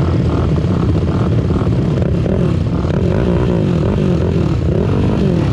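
Racing ATV engines revving, their pitch rising and falling over and over, more than one engine at once.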